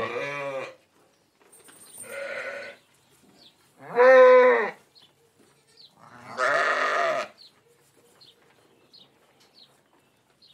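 Sheep bleating: a bleat trailing off at the start, then three more, one every two seconds or so, the one about four seconds in the loudest.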